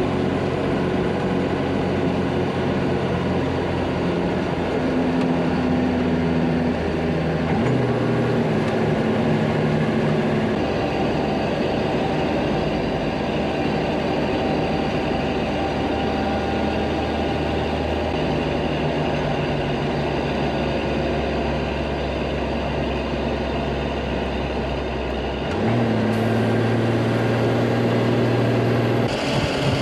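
Diesel engine of an M35 'Deuce and a Half' 2½-ton military truck running steadily at road speed, its note jumping to a new pitch a few times.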